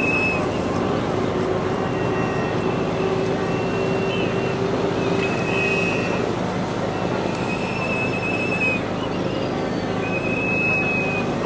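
Steady noise of a motorboat's outboard engine running, with wind and water. A short, high-pitched tone repeats every two seconds or so.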